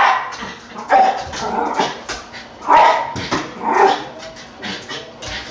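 A dog barking in an uneven run of about six sharp barks, worked up at eggs being cooked, which the owner says she always hates.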